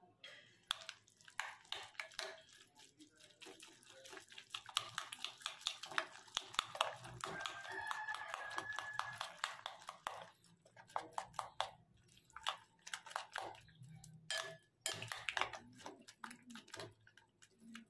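Metal spoon stirring egg and noodles in a glass bowl, with rapid clinks and scrapes against the glass that are densest in the first half. About halfway through, the glass gives a short ringing ping.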